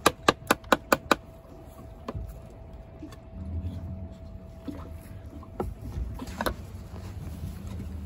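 A quick run of about six sharp taps in the first second or so, then a few single knocks, as a Doel Fin hydrofoil is knocked into place on an outboard's anti-ventilation plate. A steady low hum comes in a little after three seconds.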